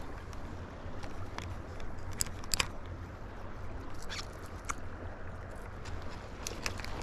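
Steady rushing of river water, with a few sharp clicks and taps, the loudest about two and a half seconds in.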